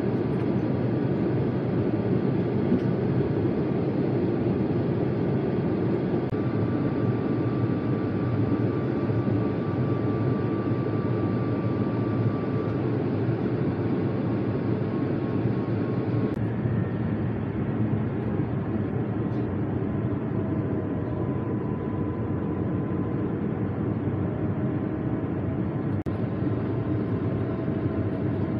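Steady cabin noise of an Airbus A350 airliner during descent: the even rush of its engines and airflow heard from a window seat, with faint thin whining tones over it. The sound shifts abruptly a little past halfway.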